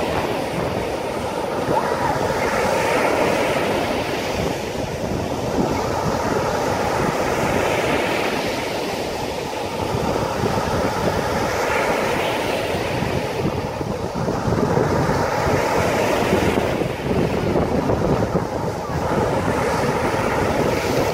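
Storm surf: waves breaking one after another every four or five seconds over a constant rush of churning water, with wind on the microphone.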